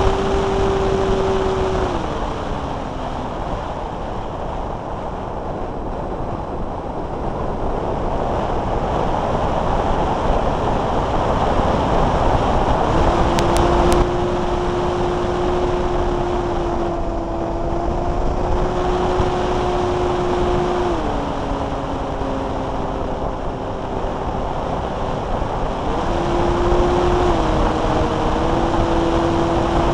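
Air rushing past a camera mounted on a Multiplex Blizzard electric RC plane in flight. The motor's steady whine steps down in pitch a couple of seconds in and drops out, comes back about halfway through, steps down again, then rises back near the end as the throttle changes.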